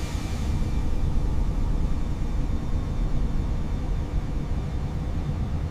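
Jet airliner engines at takeoff power: a deep, steady rumble that swells over about the first second, then holds.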